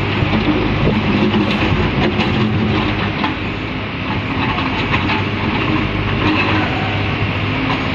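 Heavy machinery running steadily with a constant low hum, overlaid by scattered rattling clicks and knocks.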